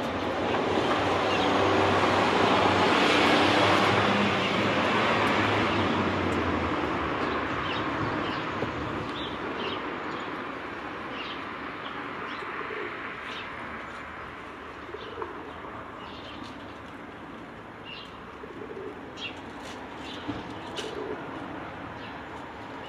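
A vehicle passes, swelling and fading over the first several seconds. Then small birds chirp in short high calls while a pigeon coos repeatedly; the siren is silent.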